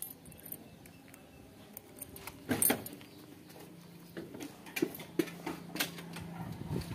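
Scattered clicks and clinks of small metal parts being handled, with a louder clatter about two and a half seconds in and a faint steady hum joining about halfway through.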